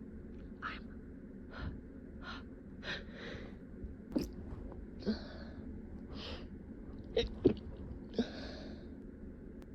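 A person's short sniffs and catching breaths, then stifled, held-back sneezes squeezed out as sharp muffled bursts. The loudest two come in quick succession about seven and a half seconds in.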